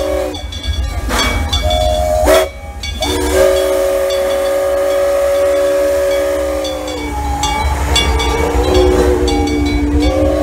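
Steam locomotive's chime whistle sounding a chord: a short toot, then one long blast whose pitch sags and wavers for a few seconds before rising again near the end. Steam hiss and the low rumble of the moving locomotive run underneath.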